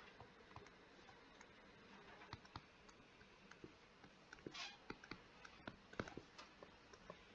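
Faint, irregular clicks and taps of a stylus on a tablet screen while writing by hand, with one short soft hiss about halfway through.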